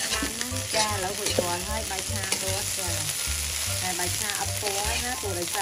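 Fried rice sizzling in a hot pan while a wooden spatula stirs and scrapes through it.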